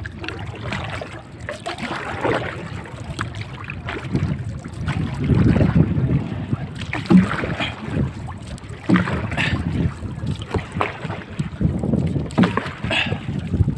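Water splashing and slapping against the hull and outrigger float of a moving outrigger boat, in irregular slaps that grow busier from about five seconds in, with wind on the microphone.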